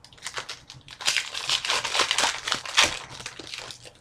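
Hockey card pack wrapper being torn open and crinkled by hand, a busy crackling that builds about a second in and stops near the end.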